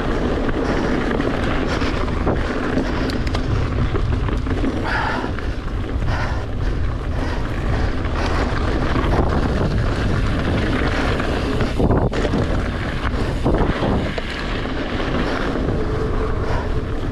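Giant Trance X 2 mountain bike rolling along a dirt singletrack: steady wind buffeting on the camera microphone over tyre rumble, with frequent small rattles and knocks from the bike over bumps in the trail.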